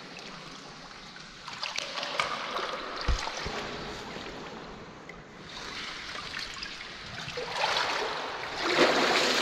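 Water splashing, trickling and streaming off a scuba diver and his gear as he hauls himself out of a flooded mine shaft up a steel ladder, with a dull knock about three seconds in and the loudest splashing near the end.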